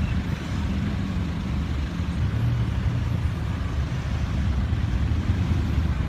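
Slow, congested road traffic: cars and pickup trucks idling and creeping along in a queue, a steady low engine rumble.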